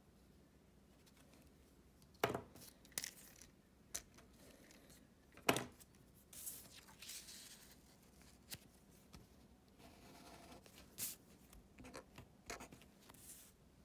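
Felt-tip marker tapping and scratching on a paper worksheet as points are plotted and a line is drawn, mixed with handling rustles of paper and the handheld camera: about half a dozen sharp taps and a few short scratchy strokes.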